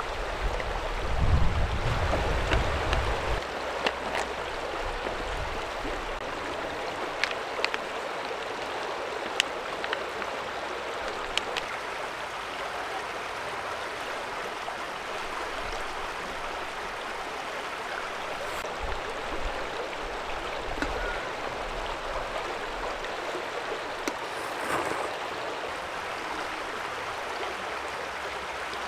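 A shallow stream running over a stony bed: a steady rush of water. A low rumble sounds during the first three seconds, and a few brief sharp clicks come through it.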